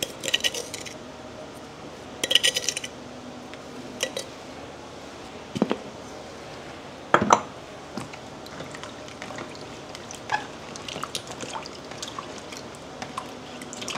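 A plastic spoon scrapes and clinks in a glass jar of salt, with a few sharp knocks in the middle. Then hands swish and rub cut taro pieces in a plastic basin of salted water, making small splashes.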